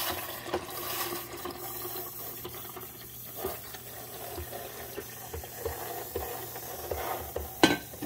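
Water pouring from a glass carafe into the reservoir of an Amazon Basics 12-cup programmable coffee maker, a steady splashing pour into a machine left switched on and still hot. A single sharp knock comes near the end.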